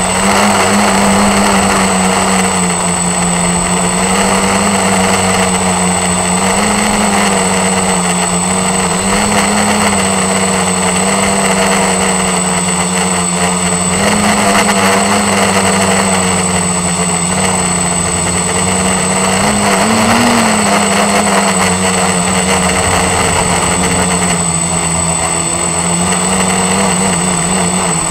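ST360-frame quadcopter's electric motors and propellers buzzing steadily in flight, heard close up from its onboard camera, with a thin high whine alongside. The pitch wavers slightly with throttle and rises briefly about two-thirds of the way through.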